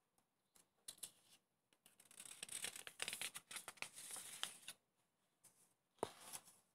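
Paper sheets rustling and crinkling as a printed worksheet is handled and turned over to another page, with a few light clicks before it and a sharper tap near the end.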